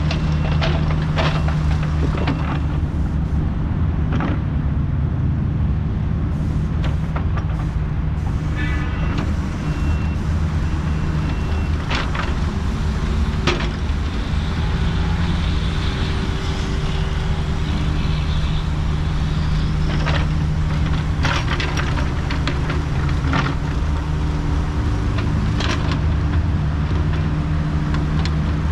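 Kubota U55 mini excavator's diesel engine running steadily while it works, with scattered sharp clanks and knocks from the machine as it digs and moves dirt.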